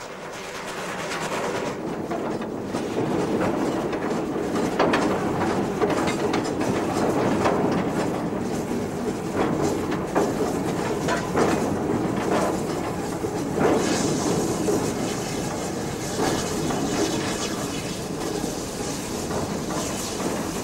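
Great Western steam locomotive under way, heard from its footplate: the engine running, with the clatter of its wheels on the rails and irregular sharp knocks.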